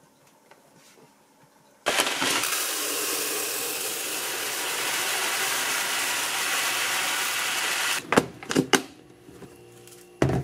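Uncooked white rice poured in a steady stream into a plastic storage container: an even hiss of falling grains that starts suddenly about two seconds in and stops abruptly about six seconds later. A few sharp knocks and a thump follow as the container is handled.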